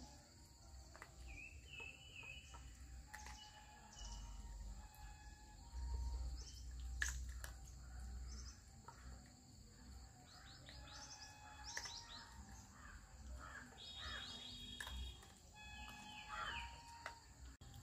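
Birds chirping in the background, faint, with a run of quick falling trills about 10 s in and again around 14 s. A few sharp clicks sound, the loudest about 7 s in, together with a low rumble.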